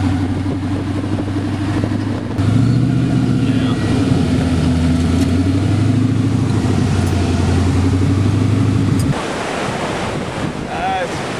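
Sand rail's twin-turbo LSX 427 V8 running at a steady engine speed. It gets louder about two seconds in and cuts off sharply near the end, leaving wind noise on the microphone.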